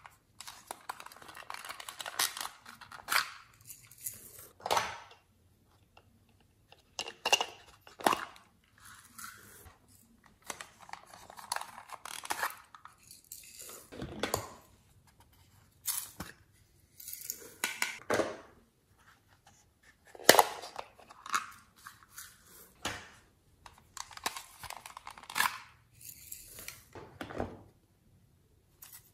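Small plastic containers being picked up and opened, and glitter and sequins tipped into a glass baking dish of slime: a run of separate short rustles and clicks with brief gaps between them.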